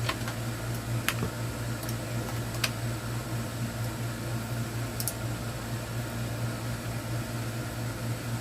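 Steady hum of a room air conditioner running, with three faint light clicks about one, two and a half and five seconds in.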